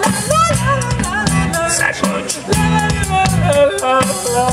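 Live band playing an upbeat song on drum kit, electric bass and acoustic guitar, with a man singing over it and a steady drum beat.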